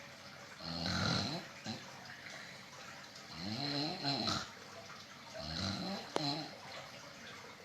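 Snoring: three loud snores, about one every two and a half seconds, each a pitched, fluttering breath; a sharp click comes during the third.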